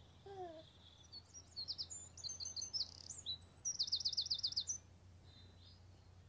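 Birdsong: a run of high chirps and whistles, then a fast trill of about eight quick downward-sweeping notes that ends about five seconds in. A short, falling voice-like note sounds just before the birds begin.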